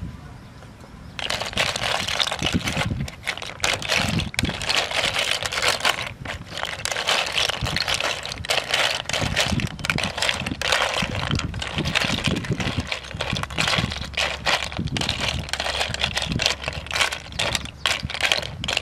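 Snails in their shells being mixed by hand in a metal cooking pot: a dense, continuous clatter of shells knocking against each other and the pot. It starts about a second in.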